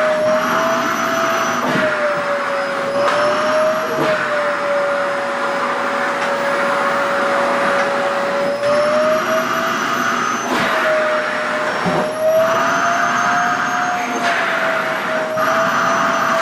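SHARP EC-KP7F-A vacuum cleaner running steadily, drawing at the stiff, airy organza fabric of a long skirt. Its motor whine dips and rises slightly in pitch over a loud rush of air, with a few faint knocks.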